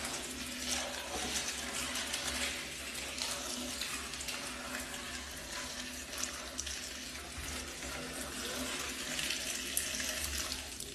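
Hot water pouring steadily from a stainless-steel kettle into a toilet bowl, splashing onto dry elbow macaroni.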